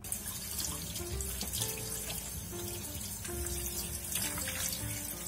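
Tap water running steadily into a stainless mesh strainer of sliced raw pork liver in a sink, rinsing the slices under the stream.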